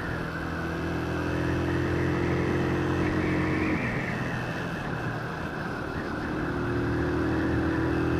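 Motorcycle engine running steadily under way, with a constant rush of wind and road noise. A higher part of the engine note fades about four seconds in and comes back a few seconds later.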